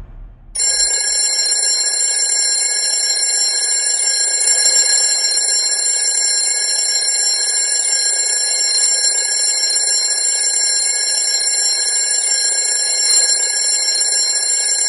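Swiss Arthur Imhof alarm clock's alarm ringing: a loud, steady ring that starts suddenly about half a second in and goes on without a break.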